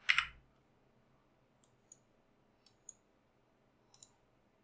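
About five quiet, sparse computer mouse clicks, after one brief louder noise right at the start.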